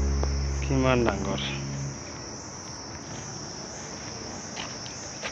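Steady high-pitched insect chorus, with background music fading out under it during the first two seconds; the music includes a short falling sweep about a second in.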